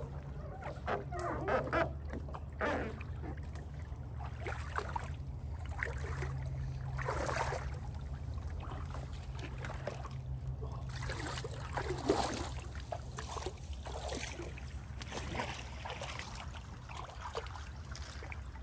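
A small paddle boat being worked through a snag of branches on a creek: irregular scrapes, knocks and water splashes over a steady low rumble.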